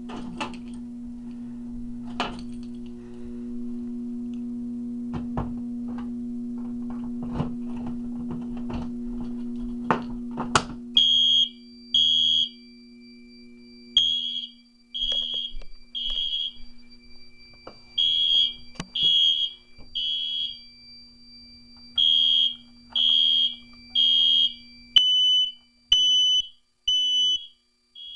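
A steady low hum with scattered clicks and knocks. About 11 seconds in, a smoke alarm starts sounding loud, high-pitched beeps in groups of three, the temporal-three evacuation pattern. Near the end a second alarm beeps about once a second at a slightly lower pitch.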